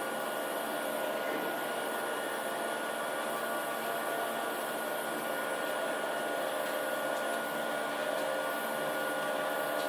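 Steady whirring hum of electrically driven machinery, such as fans or motors, running without change, with a thin high whine held over it.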